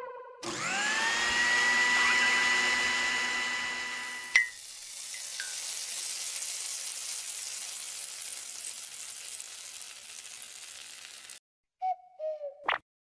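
An electric kitchen mixer spins up with a rising whine, runs steadily for about four seconds and stops with a click. Then pancake batter sizzles in a hot pan with a steady hiss that cuts off suddenly, and a few short blips come near the end.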